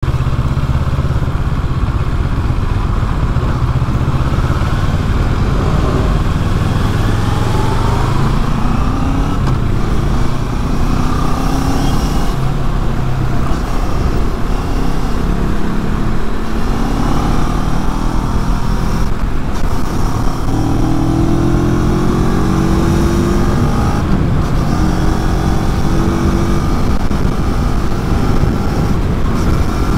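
CFMoto 400NK parallel-twin engine through its stock exhaust, accelerating up through the gears. The engine note climbs with each gear, then drops back at each of several upshifts.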